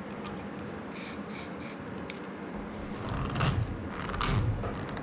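Three short hisses of an aerosol cleaner spray about a second in, followed by a couple of seconds of scraping and rubbing.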